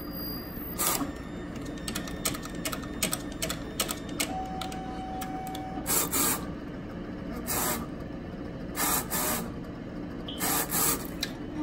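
Roland FJ-50 wide-format inkjet printer printing its test pattern over a steady machine hum. A quick series of clicks comes first, then a brief tone, then short rushing passes of the print head carriage about every one and a half seconds.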